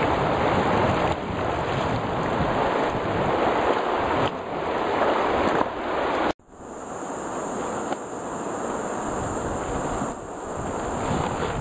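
Rushing river water and wind on the microphone, with water splashing as a cast net is hauled out. About six seconds in, after an abrupt cut, a steady high-pitched insect buzz sounds over light wind.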